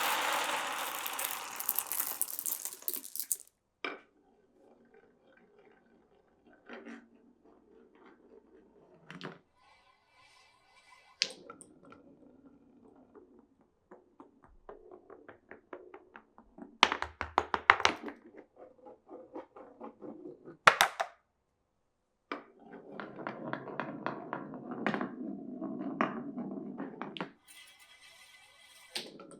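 Glass marbles running through a wooden marble run, rolling along the wooden rails and blocks with sharp clacks and knocks as they drop and hit wood. The clip opens with a loud rushing rattle that dies away over about three seconds. There is a longer rolling run later, from about 22 to 27 seconds, and a quick high rattle near the end.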